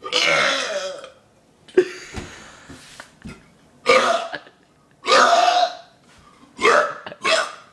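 A person belching repeatedly: one long, loud burp at the start, then four shorter burps about a second apart in the second half.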